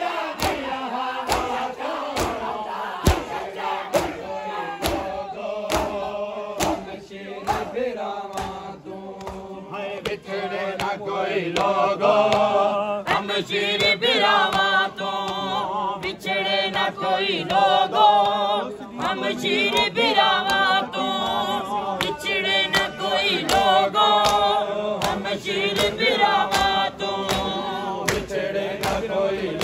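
A noha (Shia mourning lament) chanted by a group of men, with rhythmic chest-beating slaps of matam keeping a steady beat. The chanting grows louder and fuller a little before halfway.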